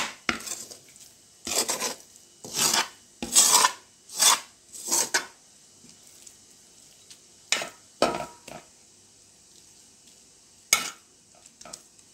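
Metal spoon scraping sticky coconut burfi mixture out of a metal kadai and across a stainless steel plate. A run of short rasping scrapes comes about once a second, then a pause of about two seconds, then a few more scattered scrapes.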